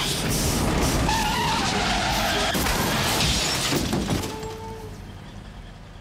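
Car crash: tyres skidding with a wavering squeal, and loud crash noise that eases off after about four seconds.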